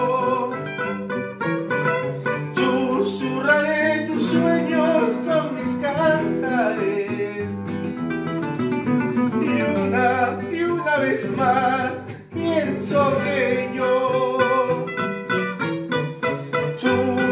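A pasillo played on acoustic guitars: a plucked melody line over strummed accompaniment, in an instrumental passage without sung words.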